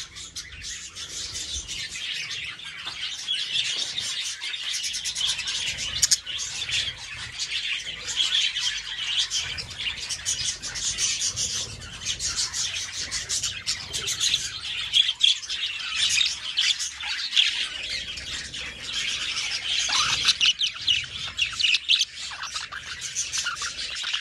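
A flock of budgerigars chattering, a steady mass of many overlapping high chirps and warbles.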